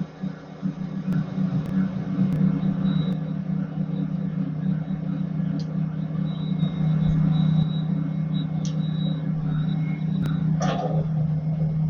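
Colchester Student lathe running under power with a steady hum while a rear-mounted inverted parting tool cuts the workpiece, with a faint high whine that comes and goes. A short, harsher burst comes near the end.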